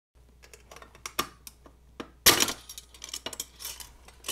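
Sheet-metal shield cover of a radio module being pulled and pried, clicking and rattling against the metal chassis, with a sharp metallic clatter about two seconds in as the shield comes off.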